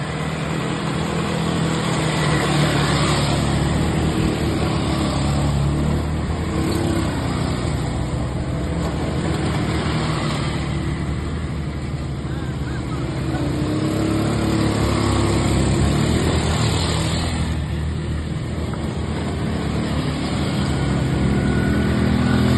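ATV engine running under way, its pitch rising and falling with the throttle over a steady rushing noise.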